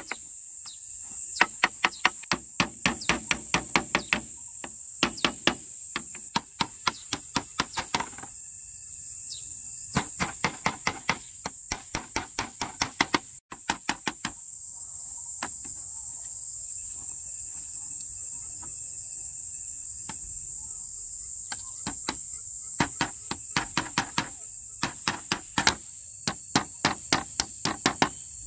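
Runs of sharp strikes, about four a second, broken by pauses, as a tool chops or pounds during shelter building. A steady high-pitched drone of forest insects runs underneath.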